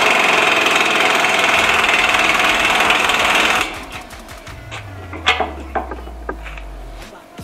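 BJC 1550 pneumatic impact wrench running at full air for about three and a half seconds, hammering at a 30 mm bolt, then stopping suddenly; a few sharp metal clinks follow.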